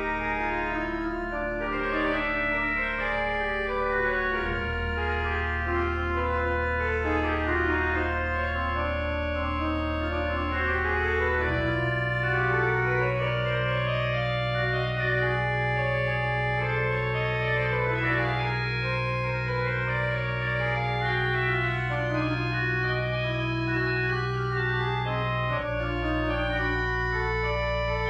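Organ playing a showy, improvisatory voluntary. Two lines move in quick counterpoint on the manuals over long held pedal notes, and the held bass note changes three times.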